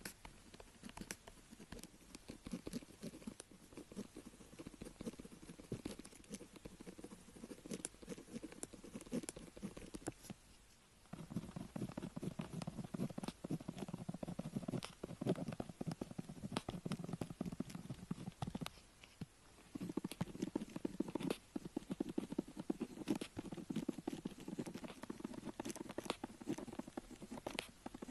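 Pen tip scratching across paper in close-up, writing strokes in a continuous dense run of small scrapes and ticks, pausing briefly about 10 seconds in and again about 19 seconds in.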